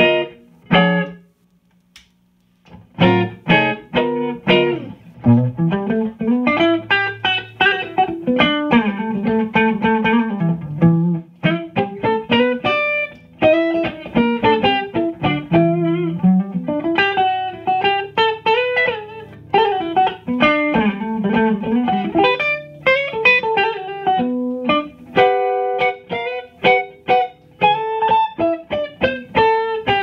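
Hollow-body electric guitar played through an amplifier chassis on the test bench for a tone test. The playing stops briefly about a second in and picks up again after about two seconds.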